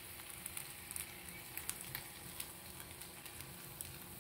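Faint sizzling from a hot oiled pan on low heat as egg, milk and bread batter is poured in, with scattered small crackles.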